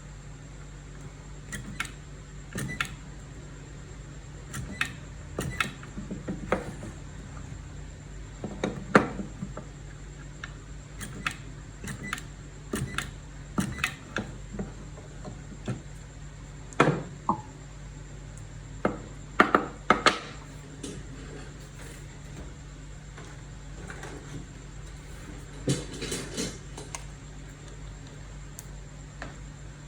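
Scattered clicks and taps of small hard objects being handled, some in quick clusters, over a steady low hum.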